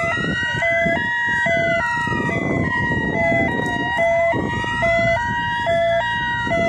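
Two sirens sounding together. One wails slowly up and down, peaking about a second in and again near the end of a roughly five-second cycle. The other switches between two pitches about three times a second. A rough rushing noise runs underneath.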